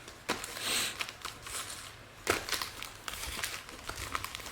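Trading cards and plastic packaging being handled: light rustling and crinkling with scattered soft clicks, one sharper click a little past two seconds in.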